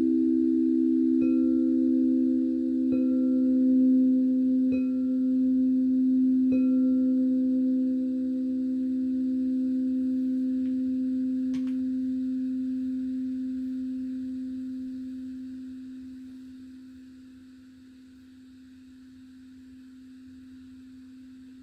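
Crystal singing bowls ringing with several long, steady low tones, while a higher bowl is struck lightly four times, about every two seconds. The ringing then slowly dies away over about ten seconds, with a brief click around the middle, until one low tone is left humming faintly.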